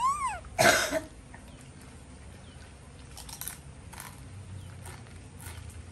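A monkey gives a short high squeal that rises and falls. About half a second later comes a loud, harsh cough-like burst, followed by faint scattered clicks and rustles.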